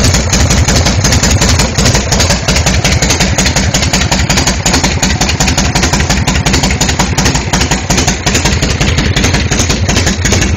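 1979 Harley-Davidson Shovelhead's air-cooled V-twin engine idling steadily, a loud, even train of exhaust pulses.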